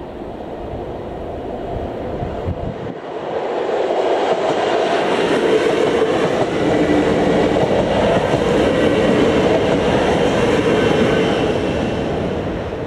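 A ČD class 640 RegioPanter electric multiple unit passing over a level crossing: the rumble of its wheels on the rails swells as it arrives and stays loud while it crosses, with some clickety-clack, then fades as it pulls away near the end.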